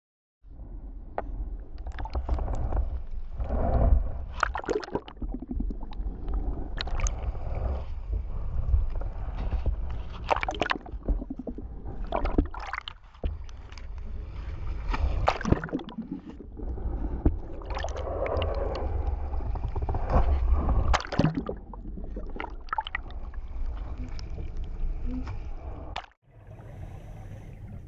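Choppy lake water sloshing and splashing over a camera held at the surface, with a heavy low rumble and many sharp splashes. About 26 seconds in it cuts off abruptly, leaving a quieter steady underwater hiss.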